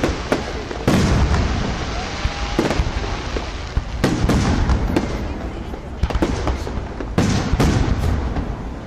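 Aerial firework shells bursting in quick succession: heavy booms about a second in, about four seconds in and about seven seconds in, with sharp cracks and crackling between them.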